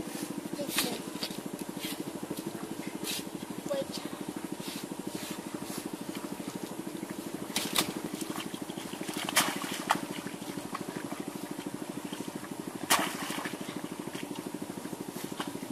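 Hands digging and squelching in wet mud and shallow water, with scattered sharp wet slaps and splashes, the loudest a little past the middle and again near the end. A steady low hum runs underneath.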